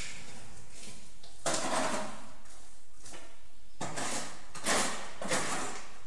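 Steel trowel scraping tile mortar from a bucket. There are several short scraping strokes: a longer one about a second and a half in, then three quicker ones close together a little past the middle.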